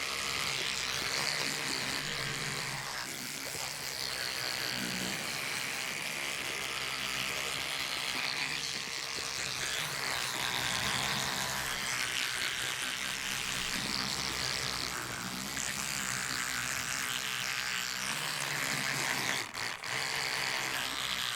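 Electric toothbrush running while brushing teeth: a steady motor buzz under a wet scrubbing hiss that rises and falls as the brush works. The sound dips briefly twice near the end.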